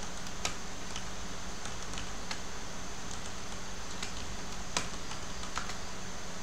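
Computer keyboard keys clicking as commands are typed: about a dozen scattered, irregular keystrokes over a steady background hiss and low hum.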